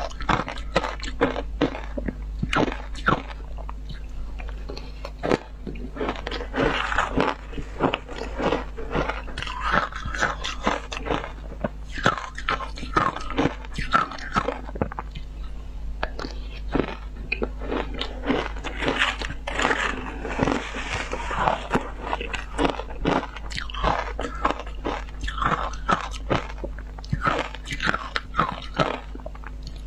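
Close-up crunching of ice being bitten and chewed, milk-powder-coated ice, with many irregular sharp cracks and crunches one after another.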